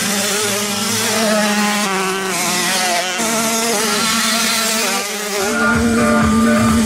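Several small racing engines buzzing and revving, their pitch rising and falling. Near the end, deep repeated low thumps join in.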